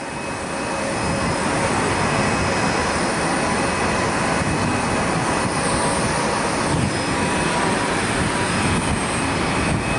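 Boeing 767-300ER's jet engines running at idle during pushback: a steady rushing noise with a thin, even whine, fading in over the first second.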